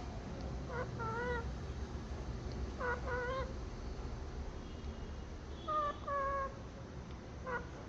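Pet parrot calling: three pairs of a short note and a longer wavering, meow-like note, then one short note near the end, over a low steady background hum.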